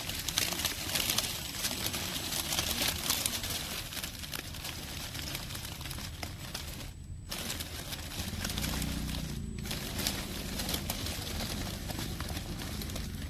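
Radio-controlled rock crawler driving over rough dirt and gravel, with a steady crackle and clicking of tyres and chassis on loose ground. From about eight seconds in, a low motor hum joins it.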